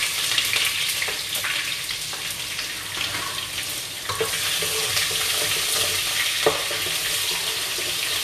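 Onions and fenugreek seeds sizzling steadily in hot oil as they are stirred in the pan, with a few short knocks against the pan.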